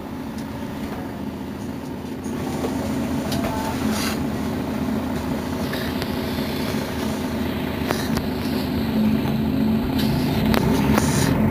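Mercedes-Benz Citaro Facelift city bus engine running with a steady low hum that grows gradually louder, with a few faint knocks or rattles.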